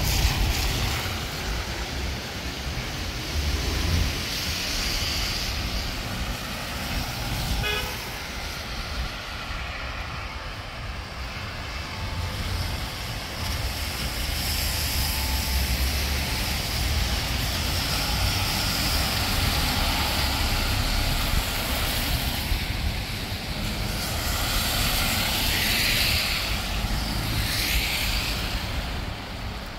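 City street traffic on wet roads: cars passing one after another with tyre hiss swelling and fading over a steady low rumble, and a brief car horn toot about eight seconds in.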